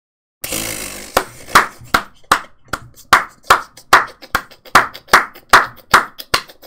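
One person clapping his hands repeatedly in a steady rhythm, about two and a half claps a second, starting about half a second in.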